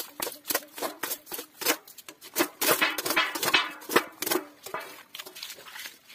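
A metal pan scraping and knocking against gravel and stones as it scoops mud and water from a shallow streambed: a quick, uneven run of clicks and scrapes. In the middle, muddy water splashes out as the pan is tipped, and the scraping dies down near the end.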